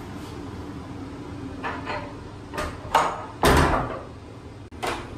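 A door being opened and shut: a few short knocks and scrapes, the loudest about three and a half seconds in, over a steady low hum.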